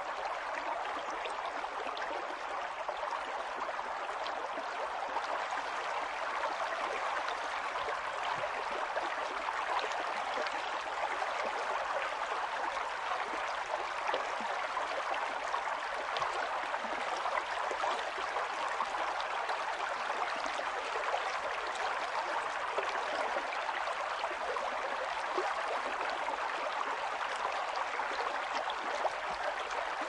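River water rushing and splashing over rocks in a steady, unbroken flow. The sound is more bright than deep.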